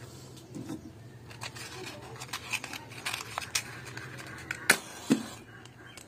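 Small clicks and rustles of a cardboard matchbox being handled and opened and a matchstick taken out, with two sharper clicks near the end, over a faint steady low hum.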